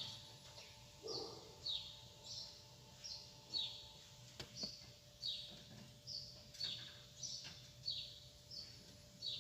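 A small bird calling over and over: short, high chirps that slide downward, about one or two a second, faint against a low background hum.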